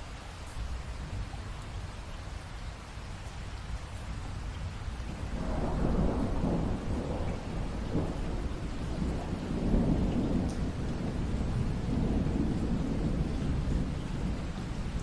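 Steady rain, with a long rumble of thunder coming in about five seconds in and swelling twice more.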